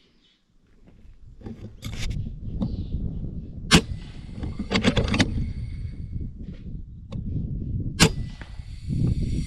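Air rifle shots from an FX pre-charged air rifle: a sharp crack a little under four seconds in and another near the end, with a quick run of three or four clicks about a second after the first. A low rumble of wind or handling noise runs underneath.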